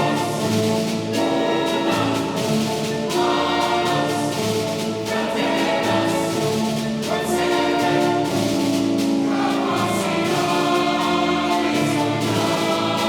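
Choir singing with a full orchestra in a choral cantata, holding sustained chords that change every second or two.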